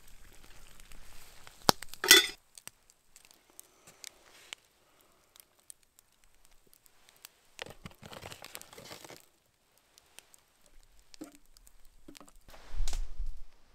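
A metal spoon and lid clinking and scraping in a metal camp pot of coffee on a campfire. There is a sharp clatter about two seconds in, a run of scraping in the middle, and another handling burst near the end.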